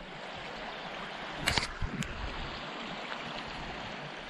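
Small stream running over stones: a steady rush of water. Two short knocks come about one and a half and two seconds in.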